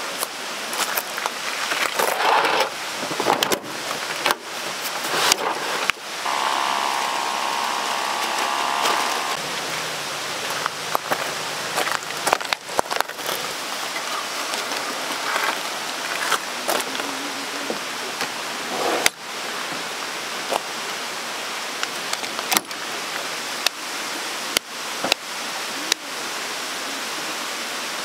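Steady rushing water noise, with many short clicks and knocks scattered through it and a brief pitched hum for about three seconds starting around six seconds in.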